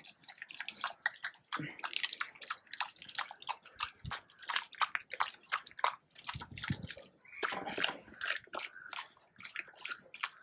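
An American Bully dog eating raw meat soaked in milk from a stainless steel bowl, lapping and chewing in a quick, irregular run of wet clicks, slurps and smacks.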